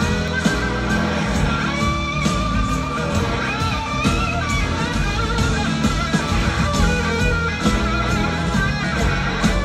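A live rock band playing: a lead electric guitar line over drums and the full band, recorded from the audience.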